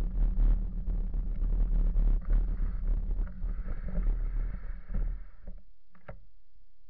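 Wind buffeting the microphone and the rumble of a bicycle rolling over a gravel path, which cut off about five and a half seconds in as the bike comes to a stop. A couple of faint clicks follow.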